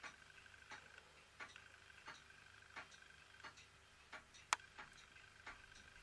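Faint, regular mechanical ticking, about three ticks every two seconds, over a faint steady high hum, with one sharper click about four and a half seconds in.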